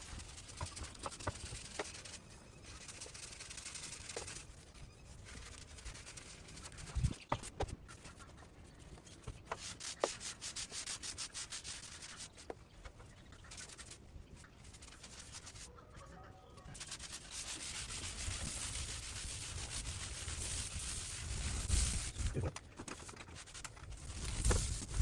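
Drywall joint compound being hand-sanded: a rough hiss of strokes in runs with short pauses, louder over the last few seconds.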